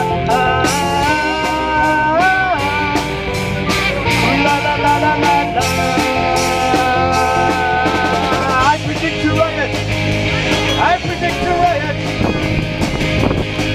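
A live rock band playing an instrumental break. A lead guitar holds long notes and bends them in pitch over a steady drum beat.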